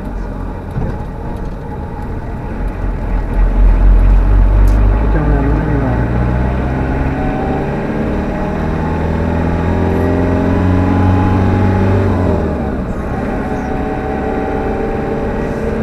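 Talbot Express motorhome on the move, heard from inside the cab. The engine and road rumble steadily; about five seconds in the engine note climbs, holds steady for several seconds, then drops back.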